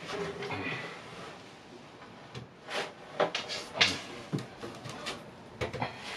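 Soft-close metal drawer slides being handled and set against the melamine cabinet side: a scattered series of short clicks and knocks, with no drill running.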